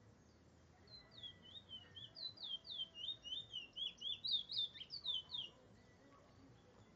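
Caged Trinidad bullfinch singing one phrase of quick, high, down-slurred notes, about five a second. The phrase starts about a second in, grows louder, and stops about five and a half seconds in.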